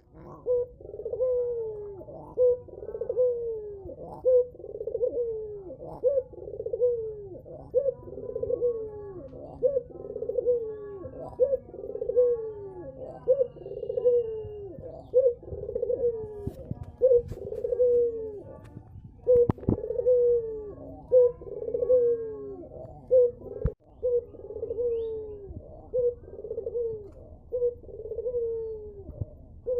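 Tame spotted dove cooing over and over, low and steady, each call a short note followed by a longer falling coo, roughly once a second.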